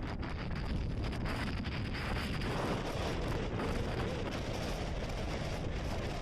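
Strong storm wind buffeting the microphone: a steady low rumble under a rushing hiss, swelling about two and a half seconds in.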